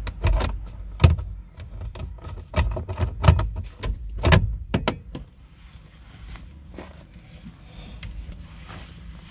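Sharp knocks and clicks of hard plastic and metal parts being handled under a car dashboard as a replacement blower motor is set in place and its screws are started by hand. Several loud knocks come in the first five seconds, then only quiet scuffing.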